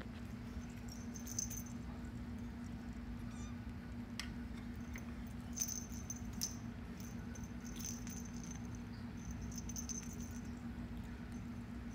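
Small bell on a feather wand cat toy jingling briefly a few times as a Bengal kitten bats and pins it on carpet, with soft pats and rustles from the kitten's paws, over a steady low hum.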